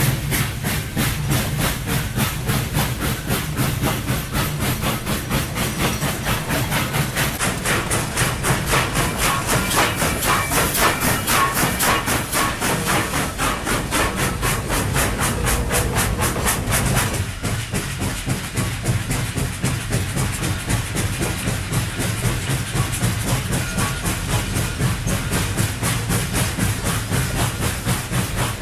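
Steam locomotive chuffing at a steady running pace, each even, rapid beat carrying a hiss of exhaust steam. About two-thirds of the way through, the hiss turns duller.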